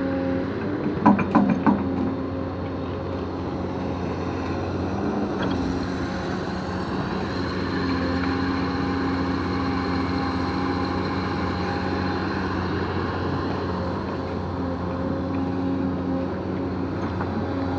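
EX230PC excavator's diesel engine running steadily, with a few sharp metallic knocks about a second in and a thin, higher steady whine joining from about seven seconds in.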